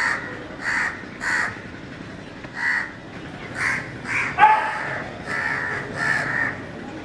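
House crow cawing repeatedly, about nine short harsh caws, with a louder, sharper call about four and a half seconds in.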